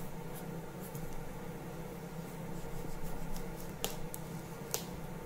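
A kitchen knife forced down through a pumpkin's hard, corky stem and tough rind: faint crunching with a few sharp cracks, the two clearest near the end, over a steady low hum.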